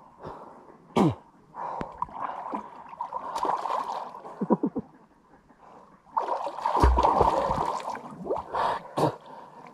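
Muddy water splashing and sloshing as swimmers move through it close by, with scattered sharp splashes and drips. There are a few brief voice sounds and a dull thump about seven seconds in.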